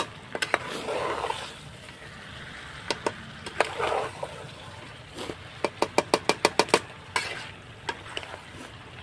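A metal spoon stirring chicken and masala frying in a pan: scrapes and sharp knocks against the pan, with a quick run of about eight taps a little past the middle.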